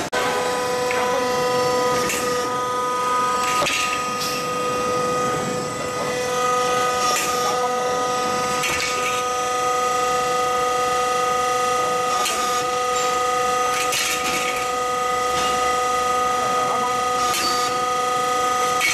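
C-stud roll forming machine running: a steady machine whine made of several fixed tones, broken every two to three seconds by sharp clacks.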